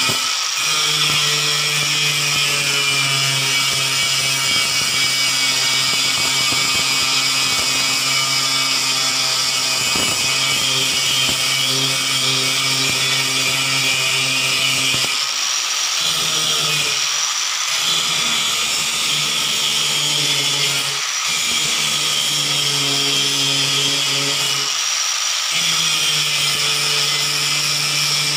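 Enka Slim LY-S1004 angle grinder grinding weld beads flat on steel: a steady, loud, high-pitched grinding. Its lower hum drops out briefly four times in the second half as the load shifts.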